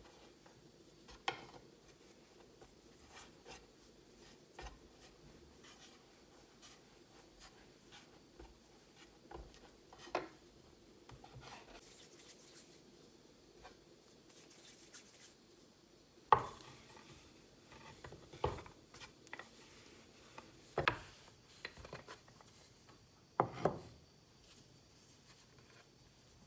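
Scattered knocks and light clicks of objects being handled on a hard surface, irregular rather than a steady rhythm, with the loudest few knocks in the second half.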